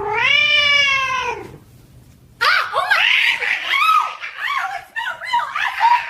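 Cat meowing: one long meow that falls away at its end, then after a short pause a rapid string of short, agitated meows and yowls.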